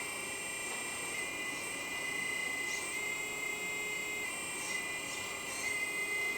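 Electric hydraulic pump of a 1/14 RC excavator whining steadily while the grab is worked. Its pitch dips briefly a few times as the valves shift the load.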